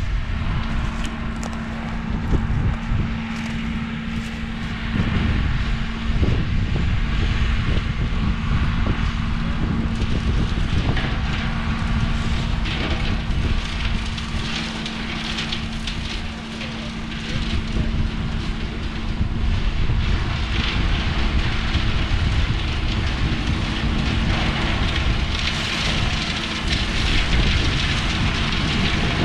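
Tractor running steadily while its tractor-driven brush chopper shreds pruned orchard branches: a constant engine hum under a rough hiss that grows louder near the end.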